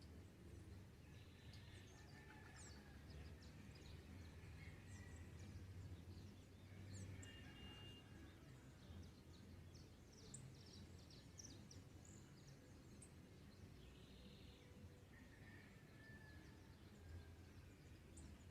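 Faint dawn birdsong: many scattered short chirps and a few brief whistled notes from several birds, over a steady low rumble of ambient noise.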